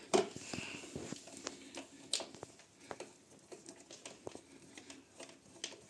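Screwdriver turning the long central screw that holds a plastic wall-socket faceplate, with scattered small clicks and scrapes of metal on plastic.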